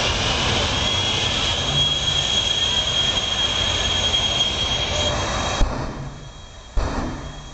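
Twin jet engines of a jet-powered semi truck running with a loud steady roar and a high whistle. The roar drops off suddenly about five and a half seconds in, and a single sharp bang follows about a second later, as the afterburners flare.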